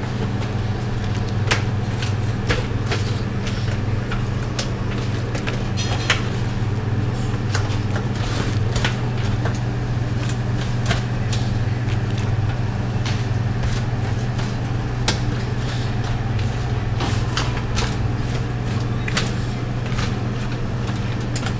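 Steady low machine hum, with irregular clicks and scrapes of live crawfish shells and legs moving against a metal tray.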